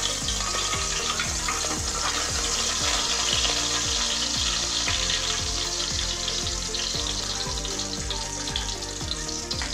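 Cooking oil in a kadai sizzling steadily as it heats on a gas stove.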